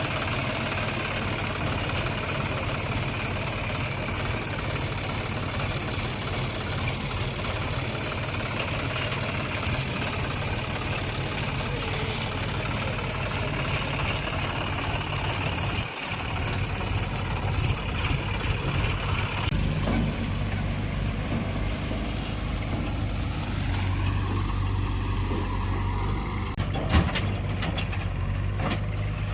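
Diesel engine of heavy earth-moving machinery running steadily at work. Its sound shifts about sixteen and twenty seconds in, and there is a sharp knock near the end.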